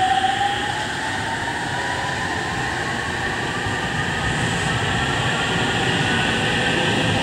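JR Central 313-series electric train accelerating away from a station: the inverter and traction motors give a whine that climbs steadily in pitch as speed builds, over the rumble of the wheels and cars passing.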